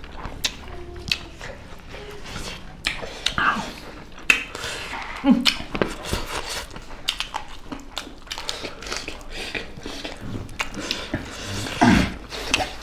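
Close-up eating sounds of people eating chicken legs and rice with their hands: chewing, biting and wet mouth smacks, heard as many short sharp clicks.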